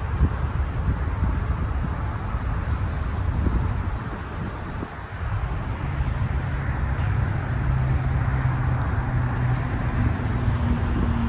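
Freight train's autorack cars rolling past close by: a steady rumble and rush of steel wheels on the rails. A low steady hum joins about six seconds in, and a second, higher hum comes in near the end.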